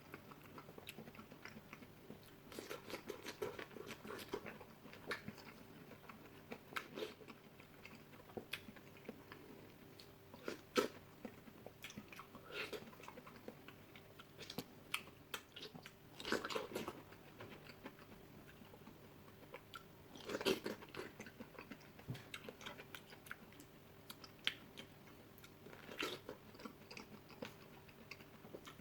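Fruit being eaten close to the microphone: scattered faint bites, crunches and wet chewing, with a few louder crunches spread through.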